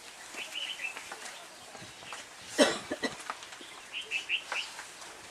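Birds chirping in two short runs of quick high notes, one about half a second in and another around four seconds in. A single brief sharp noise about two and a half seconds in is the loudest sound.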